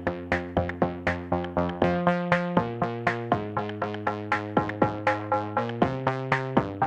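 Background music: electronic synthesizer music with a steady beat of about four plucked notes a second over changing chords.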